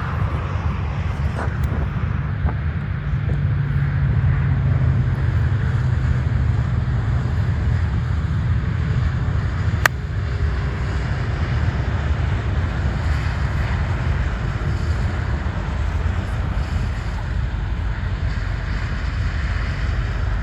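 Golf cart driving: a steady low rumble with wind buffeting the microphone, and one sharp click about ten seconds in.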